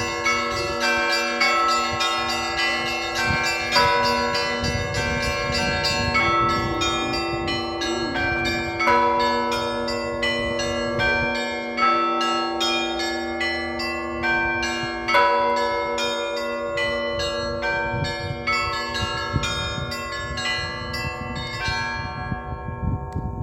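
Festive peal of Russian Orthodox church bells: rapid chiming of the smaller bells, with a heavier stroke about every three seconds, the tones ringing on and overlapping.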